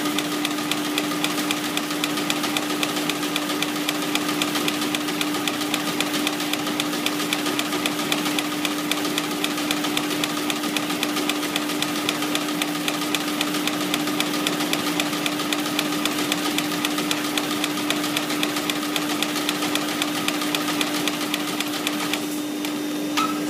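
5-axis CNC ceiling brush tufting machine running at speed: a fast, even clatter of tufting strokes over a steady hum. The clatter stops about a second before the end.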